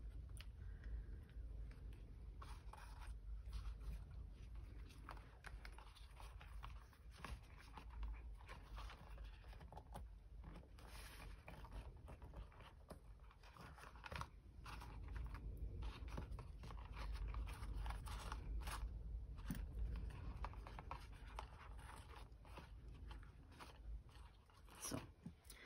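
Faint rustling and scraping of paper and twine as hands wind and tie a cord around a small paper gift box, with scattered small crinkles.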